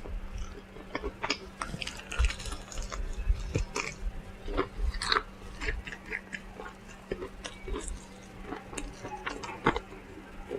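Close-up mouth sounds of someone eating fried chicken: wet chewing and lip smacking with irregular clicks and crunches.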